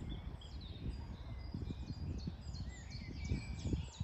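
Small songbirds chirping and singing, a busy run of short high notes, many sweeping downward, overlapping throughout, with a low uneven rumble underneath.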